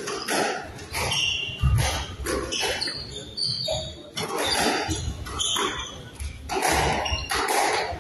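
Squash rally: the ball struck by racquets and hitting the court walls again and again, with shoes squeaking and footsteps on the wooden court floor.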